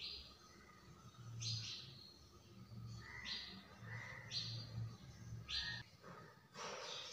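Faint bird chirps: short, high calls repeated about once a second, with a low hum beneath.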